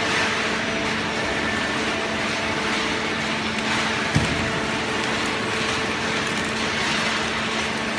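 Hydraulic carton baling press running: a steady machine noise with a low hum, and one short knock about halfway through.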